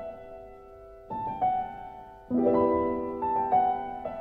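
Background piano music: slow sustained chords, with a new chord struck about a second in and a louder one a little after two seconds, each ringing and fading.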